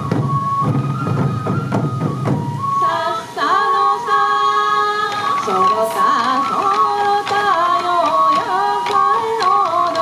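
Sansa odori festival music: taiko drums beating under a held high flute note. About three seconds in the heavy drumming drops back and a wavering melody takes over, with lighter drum strokes continuing.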